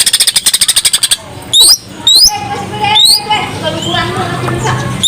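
A cucak ijo (green leafbird) singing in full, varied song. It opens with a fast trill of high repeated notes, then gives several quick rising whistled sweeps and a run of mixed chirps and notes.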